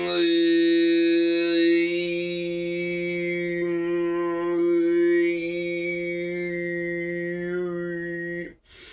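A man throat singing one long held note: a steady vocal drone with a whistling overtone melody that rises and falls high above it. It is a more vocal, less guttural style of overtone singing. The note breaks off near the end, followed by a short breath.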